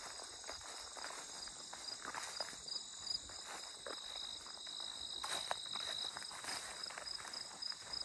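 Meadow crickets and other insects singing together in several steady high trills, one of them pulsing. Footsteps brush and crunch irregularly on a grassy path.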